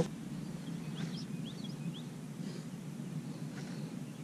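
A bird chirping faintly, a handful of short rising notes about a second in, over a steady low background hum.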